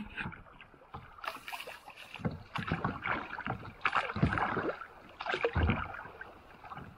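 Water splashing and gurgling against a plastic sit-on kayak's hull as it drifts through a riffle, in irregular uneven bursts. A few dull low thumps come from the hull or from handling of the camera held against the kayak.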